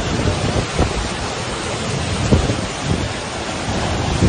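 Heavy storm rain and strong gusting wind, with gusts buffeting the microphone in short low rumbles every second or so.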